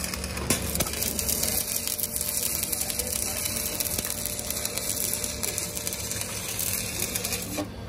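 Stick (arc) welding on a steel truck rim: the electrode arc crackles and sizzles steadily, cutting out shortly before the end. A steady low hum runs underneath.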